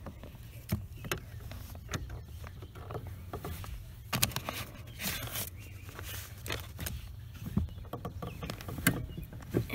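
Scattered small clicks and knocks of a hand tool and metal parts being handled at the clutch pedal bracket under a Toyota Tacoma's dashboard, during work on the clutch master cylinder.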